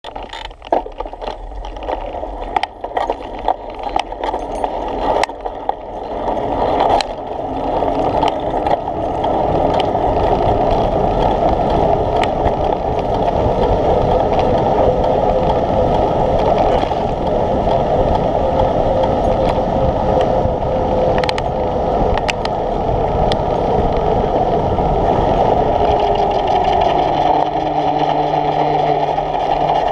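Wind rushing over the microphone of a camera riding on a moving bicycle, with tyre and road noise, building as the bike picks up speed and then holding steady. A few sharp knocks and rattles in the first several seconds.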